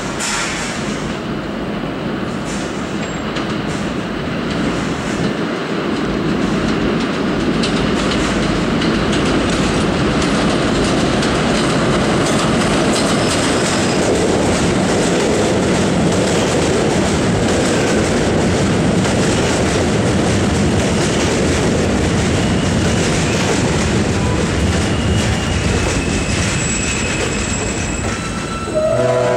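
New York City Subway Kawasaki R160B train pulling into an elevated station: wheels clattering and squealing on the rails, growing louder over the first several seconds and staying loud as the cars roll past. A few thin high whines come in near the end as it slows to a stop.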